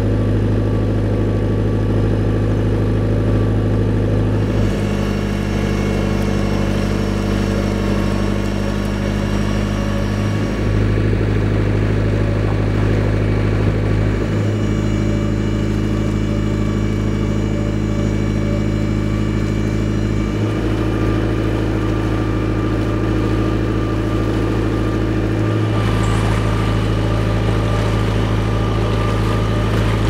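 Narrowboat engine running steadily under way, a low continuous hum whose note shifts slightly about every five seconds.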